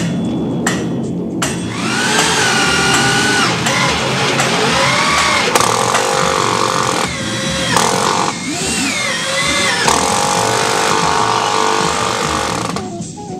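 Electric drill boring a bolt hole into a timber beam. The motor pitch rises and falls as the load changes, with a couple of brief pauses around the middle, and it stops shortly before the end.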